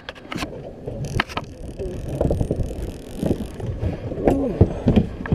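Handling noise: fabric rubbing and scraping against the microphone, with wind on it and a few sharp clicks in the first second or so.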